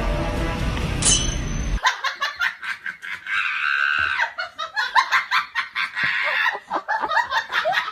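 Music that cuts off about two seconds in, followed by people laughing in quick, choppy peals.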